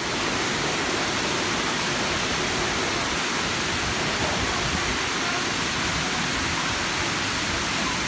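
Water rushing in a steady, even torrent.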